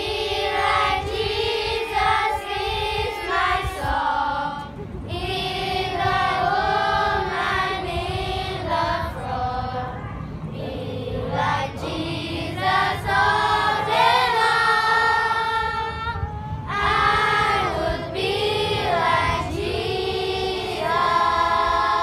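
A group of children singing a song together in unison.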